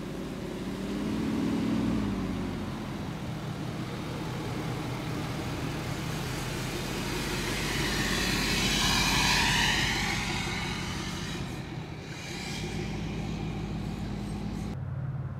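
Heavy-duty pickup truck carrying a slide-in camper driving slowly along a sandy track: engine running with tyre noise, growing louder as it passes close about nine seconds in, then fading as it drives away. The sound changes abruptly near the end.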